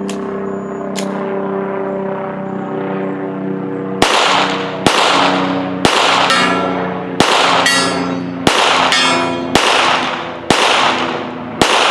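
Custom Glock 17 9mm pistol firing about eight slow, deliberate shots, roughly one a second, starting about four seconds in, several followed about half a second later by the ring of a bullet striking a steel target at 75 yards. Steady background tones come before the first shot.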